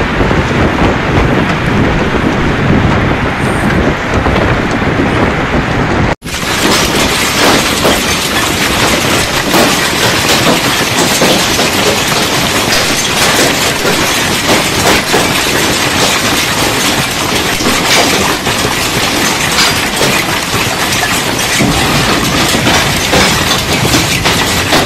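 Storm noise: strong wind on the microphone and heavy rain, a steady loud rush. It drops out for an instant about six seconds in, then carries on with a brighter hiss of driving rain.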